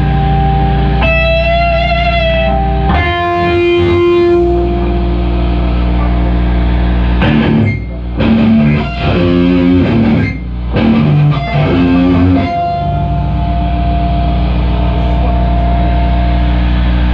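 Live band with loud electric guitar: a steady low drone with high sustained guitar notes over it, broken about seven seconds in by a run of stop-start chords with short gaps before the drone returns.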